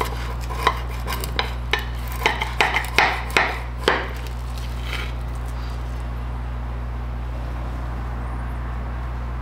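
Steak knife and fork cutting through a seared T-bone steak on a plate: a run of short scrapes and clicks of metal on the plate, loudest about three to four seconds in, then stopping. A steady low hum runs underneath.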